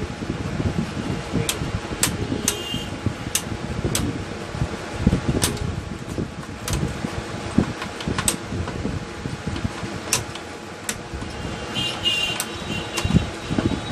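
Screwdriver working the pressure-release screw of a Xerox fuser unit: scattered sharp metal clicks and scrapes with light knocks, over a steady fan hum.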